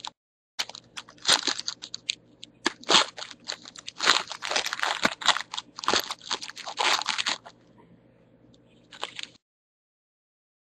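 Wrappers of 2013 Press Pass NASCAR trading-card packs crinkling and crackling as the packs are handled and opened, in quick irregular bursts. The sound cuts off suddenly about nine seconds in.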